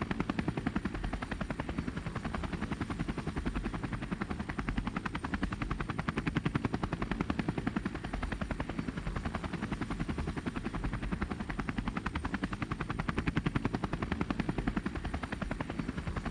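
Steady, rapid mechanical chopping, about ten even beats a second, like rotor blades.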